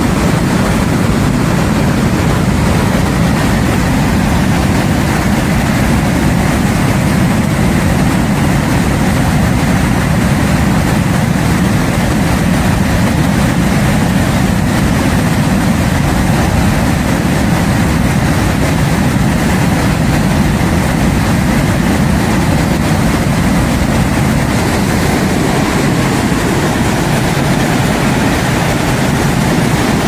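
Storm-swollen mountain creek in flood: fast, muddy water carrying sediment rushes over a rocky ford. A loud, steady rush with a deep low rumble.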